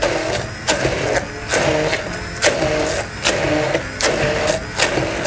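Electric stick blender running in a tall beaker of thick seed paste. The motor's pitch dips and recovers about once a second as the blade labours in the stiff mixture and is worked up and down, with sharp knocks between the dips.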